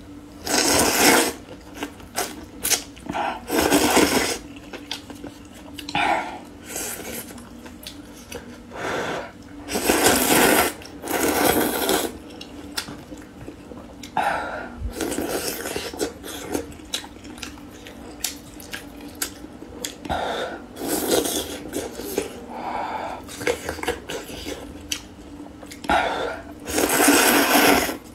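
Noodles in broth being slurped: repeated loud slurps lasting about a second each, with chewing and small wet mouth clicks between them.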